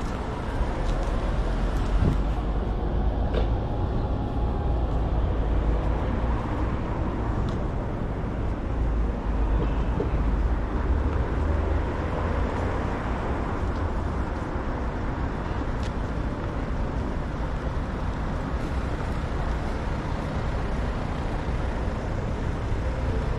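Busy city street ambience: a steady rumble of road traffic with no single event standing out.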